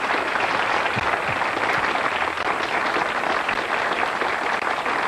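Studio audience applauding steadily, a dense patter of many hands clapping.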